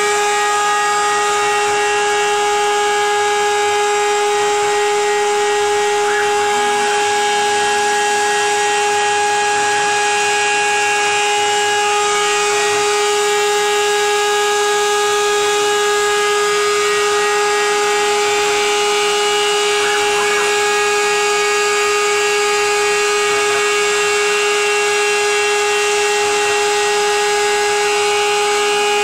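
CNC router spindle running at a steady high-pitched whine while milling polystyrene sheet, with a steady hiss underneath.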